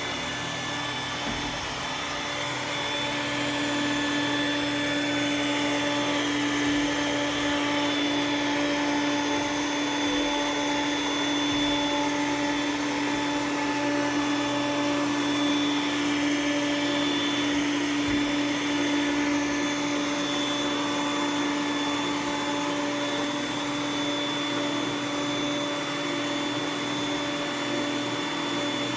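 iRobot Roomba s9 robot vacuum running steadily, its motor giving a constant hum with a high steady whine over the rushing of the suction.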